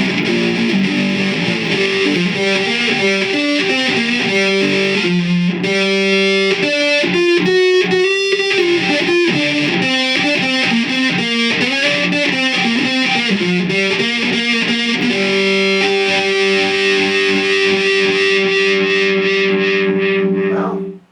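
Homemade electric oil can banjo (5-string banjo neck on a Marvel Mystery Oil can, lipstick tube pickup) played through an amp's distortion setting. Picked notes and quick runs come first, then a chord is held for several seconds and cut off abruptly near the end.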